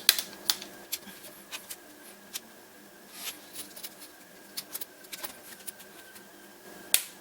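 Flat-head screwdriver prying a plastic laptop screen bezel off its lid: irregular small clicks and scrapes of plastic, with a sharper click near the end.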